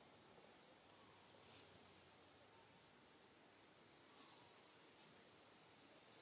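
Near silence, with a faint high-pitched animal call repeating every two to three seconds: a short chirp followed by a quick rattling trill.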